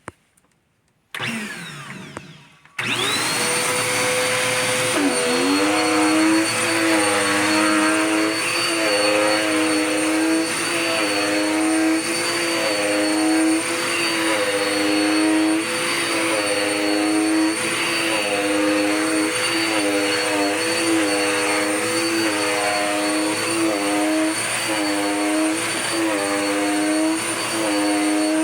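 Dirt Devil Power Max Pet vacuum cleaner switched on about three seconds in, after a short bump: the motor spins up with a rising whine, then runs loudly and steadily, its pitch dipping and recovering about once a second as it is pushed back and forth.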